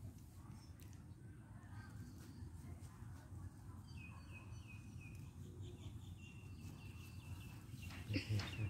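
A bird chirps faintly over low outdoor background noise. About four seconds in it gives a quick run of short high notes, then holds a thin high call for a second or so. A brief louder scuffle comes near the end.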